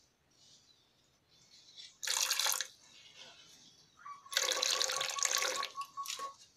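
Nitric acid poured from a plastic bottle into a plastic measuring jug holding metal scraps: a short pour about two seconds in, then a longer pour with a steady high note through it.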